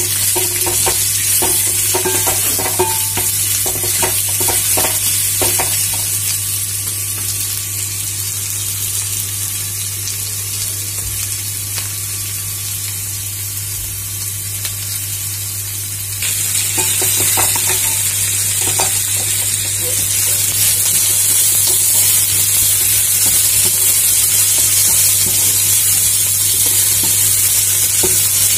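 Sliced onions, ginger and garlic sizzling in a little oil in a kadhai, with a wooden spatula scraping and stirring them through the first few seconds and again a little past the middle. The sizzle turns louder about two-thirds of the way in. A steady low hum runs underneath.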